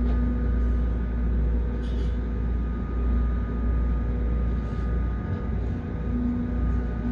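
Tower crane cab noise: a steady low rumble with a constant machine hum and a few held tones, one of them fading in and out.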